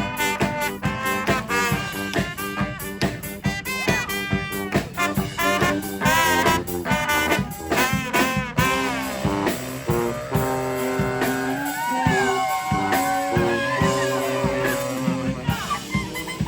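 Street brass band playing an instrumental tune live: horns over drums keeping a steady beat, with the horn notes bending and shaking for a few seconds in the middle.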